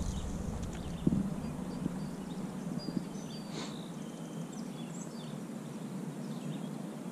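Quiet outdoor ambience from a small fishing boat on a lake: a low steady hum and background noise, with a few light knocks, the loudest about a second in.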